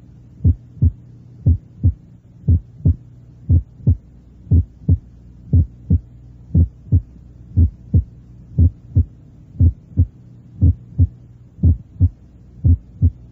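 Heart sounds: a regular lub-dub rhythm of short low thuds in close pairs, about one beat a second, over a steady low hum. They demonstrate the first heart sound played as a single sound and then with its second component added, making a split first sound.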